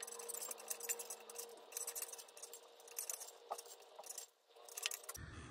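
Faint, scattered metallic clicks and clinks of small metal parts being handled at the flywheel of a Nissan VG30 engine on its stand, over a faint steady hum.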